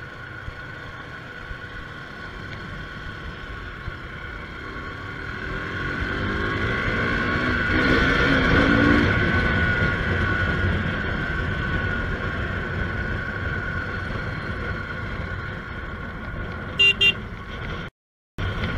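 A vehicle driving in traffic, its engine and road noise steady and then swelling for a few seconds in the middle as it pulls away. Near the end there are two short horn toots.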